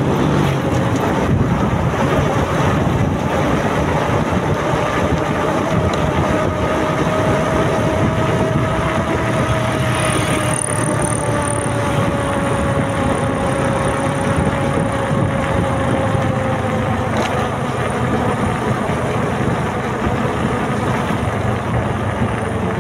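Motorcycle riding along a road: the engine runs at cruising speed under steady wind and road noise, its note drifting slowly lower through the middle.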